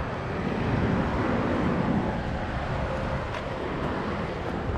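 Steady rumble of passing highway traffic, with wind buffeting the microphone.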